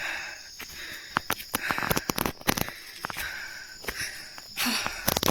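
Footsteps crunching and rustling on a forest path, with hard breathing in hazy bursts about every second and a half, over a steady high insect drone.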